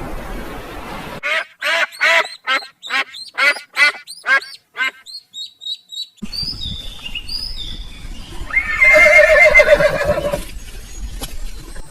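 Recorded animal calls played one after another. First comes a quick series of about ten short, loud calls, then high chirping birdsong. A single long, loud call follows near the end.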